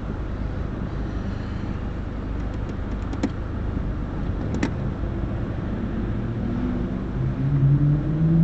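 Car driving: a steady engine and road rumble, with two sharp clicks in the middle. Near the end the engine note rises as the car speeds up.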